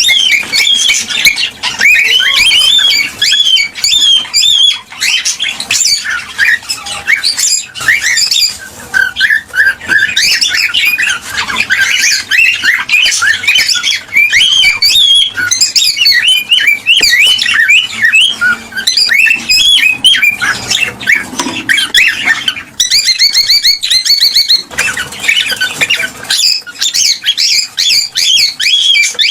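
Cockatiels chirping and squawking without pause in rapid, overlapping calls, with a harsher buzzing call about two-thirds of the way through.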